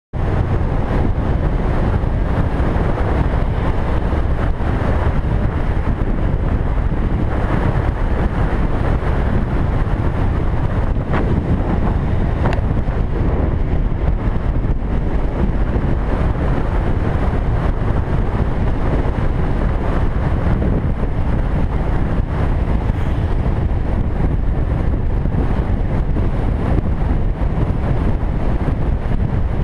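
Wind buffeting the microphone of a camera on a moving motorcycle, a steady low rush mixed with the motorcycle's engine and road noise. It cuts in suddenly at the start.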